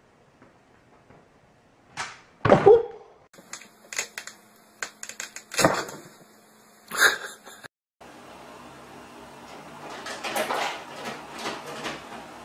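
Several sharp knocks and thumps, the loudest about two and a half seconds in. From about eight seconds on comes a steady rustling and scraping.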